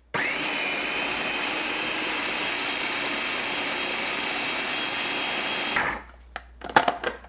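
Food processor motor blending cassava cake batter until smooth: it spins up with a short rising whine, runs steadily for about five and a half seconds, then stops. A few sharp plastic clicks and knocks follow near the end.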